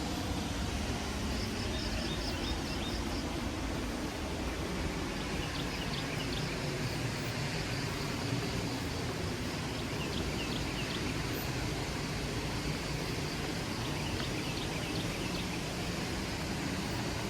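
Steady rush of falling water from a waterfall, with faint short bird chirps repeating over it now and then.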